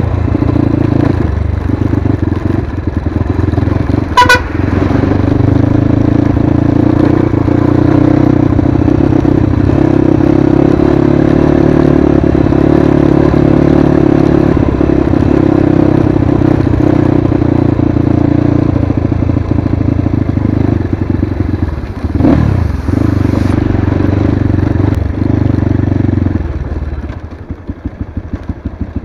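Crossfire HJ250 dirt bike engine running steadily under way, with a short horn beep about four seconds in. Near the end the engine drops to low revs, its firing pulses slow and evenly spaced.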